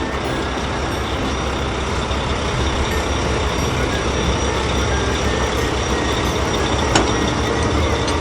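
Heavy truck engine running steadily, as a cartoon sound effect, with one short click about seven seconds in.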